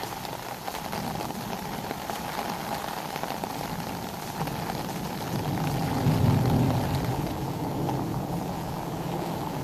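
Heavy rain falling steadily onto a flooded lawn and standing water. A low rumble swells about five seconds in and fades again by about seven seconds.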